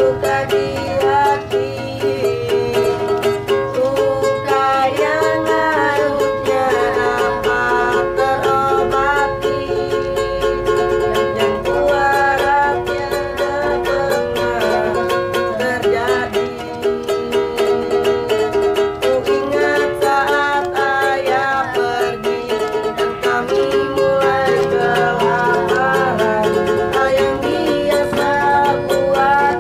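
Ukulele strummed in steady chords, with a voice singing a melody over it.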